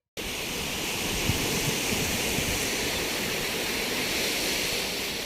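Steady rushing noise of ocean surf breaking on a beach, starting suddenly.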